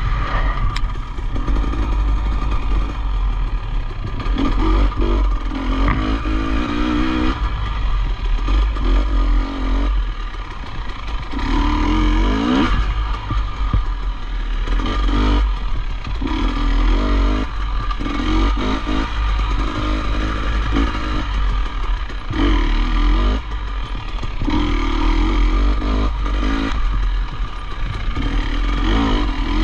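Off-road motorcycle engine revving up and dropping off again and again as the rider accelerates and backs off over the course, over a heavy low rumble, with clattering.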